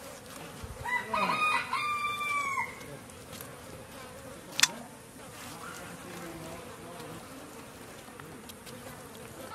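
A rooster crows once, about a second in, a held call that rises at the start and drops away at the end, over a steady buzz of insects. A single sharp click comes about four and a half seconds in.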